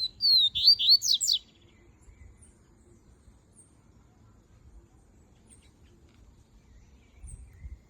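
Double-collared seedeater (coleiro) singing one loud, short phrase of rapid whistled slurs that lasts about a second and a half. Faint high chirps follow every second or two, and there are a few low thumps near the end.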